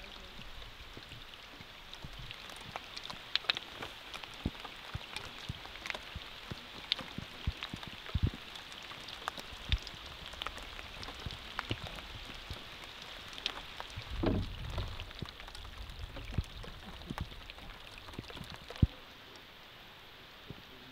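Rain pattering on the lake surface and on the canoe, a steady hiss with many single drops ticking close by. There is a short low rumble about two-thirds of the way through and a sharp knock near the end.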